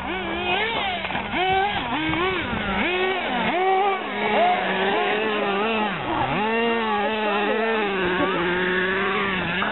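Radio-controlled off-road buggy's motor revving up and down over and over as it is driven hard on the track, the pitch rising and falling about once a second.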